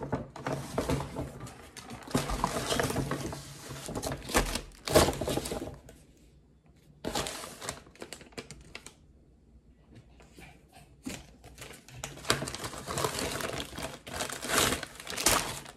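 Brown paper bag and cardboard cup carrier being handled and unpacked: irregular bursts of paper rustling and crinkling, with a couple of brief lulls.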